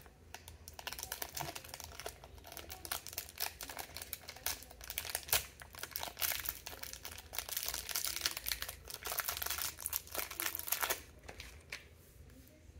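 A small blind-bag wrapper being crinkled and torn open by hand: rapid crackling that dies away about eleven seconds in.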